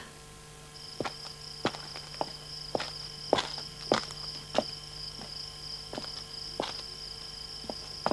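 Crickets trilling steadily at a high pitch, starting under a second in, with footsteps on a hard surface at a walking pace.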